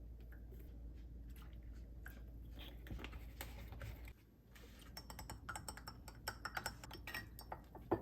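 Quick, light clicks and taps close to the microphone: a few scattered taps at first, then a dense run of rapid clicking from about halfway through, ending in a sharper knock.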